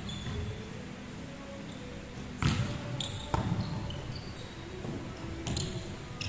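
A volleyball being struck during a rally in a large gym hall: sharp slaps of hands and forearms on the ball, one about two and a half seconds in, two more close together around three seconds, and more near the end.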